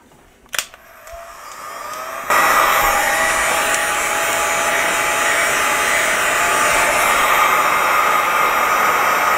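Electric heat gun switched on: a click, then the fan spins up and, about two seconds in, jumps to a loud steady rush of blowing air with a faint whine, used to shrink heat-shrink tubing over a wire.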